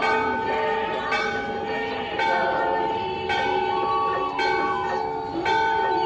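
Metal temple bell rung over and over, struck about once a second so that each ring runs on into the next.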